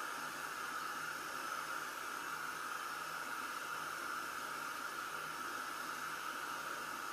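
Steady, even background hiss with no distinct events; the ladling of the thick mix into the cups is not heard as separate sounds.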